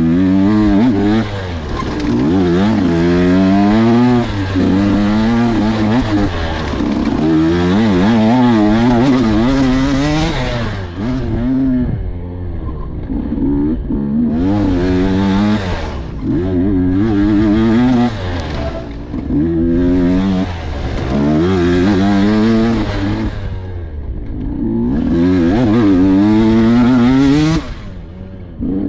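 Off-road dirt bike engine revving hard through a wooded race trail. Its pitch climbs and drops over and over as the throttle is opened and shut, with a few brief lulls.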